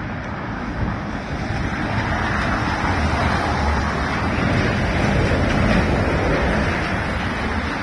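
City bus passing close by on a wet cobbled street: engine rumble and tyre hiss on the wet road swell over a few seconds and ease off near the end, with wind noise on the microphone.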